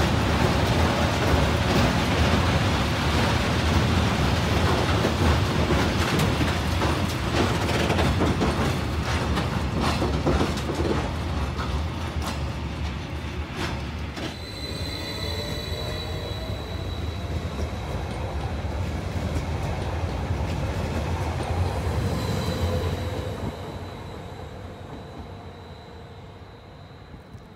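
A freight train rolling past, its wagons rumbling and its wheels clicking over rail joints. About halfway through, this gives way to a MÁV-START Stadler FLIRT electric multiple unit pulling away, with a rising electric traction whine that fades as the train recedes.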